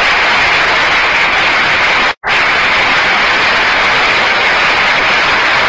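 A group applauding: steady, dense hand clapping, cut off by a brief moment of silence about two seconds in before it carries on.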